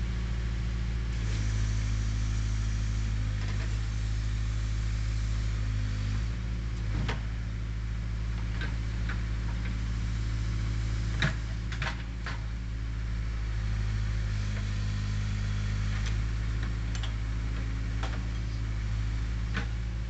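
Case 580E backhoe's diesel engine running steadily while the hoe digs, a little louder for a few seconds near the start and again later. Several sharp clanks and knocks of the bucket working dirt and rock come over it, mostly in the middle and near the end.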